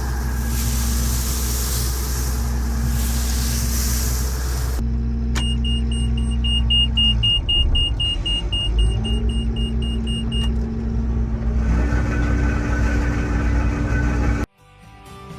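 Combine harvester's diesel engine running steadily, heard from the cab, with a hiss for the first few seconds. About five seconds in, a rapid electronic warning beep sounds for about five seconds while the choked feeder house is put into reverse, and the engine pitch dips and recovers. The sound cuts off abruptly near the end.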